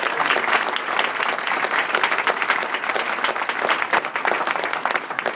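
Audience applauding: many hands clapping steadily, beginning to die down near the end.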